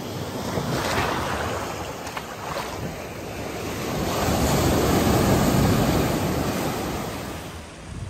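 Ocean surf: waves breaking and washing up the beach, with one larger wave swelling and fading over a few seconds in the second half. Wind buffets the microphone.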